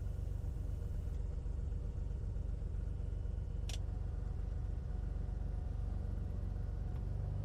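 Beechcraft A36 Bonanza's six-cylinder piston engine running at low power during the rollout and taxi, a steady low rumble, with one brief click about halfway through.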